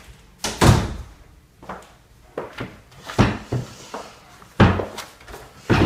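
Irregular knocks and thuds, about eight in all, from a person walking in and handling a wooden dining chair at a table. The loudest comes about half a second in.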